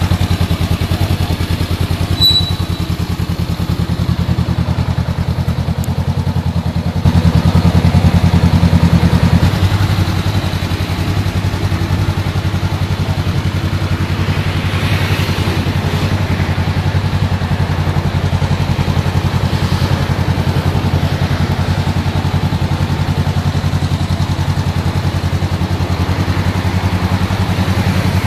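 Honda CBR500R's parallel-twin engine idling steadily, with an even exhaust note. About seven seconds in it gets noticeably louder for a couple of seconds, then settles back.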